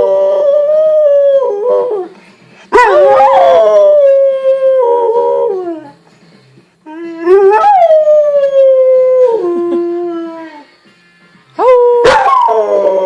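Pet dog howling in response to a fire truck's siren: a run of long howls with short pauses between, each rising at the start, holding its pitch, then sliding down at the end.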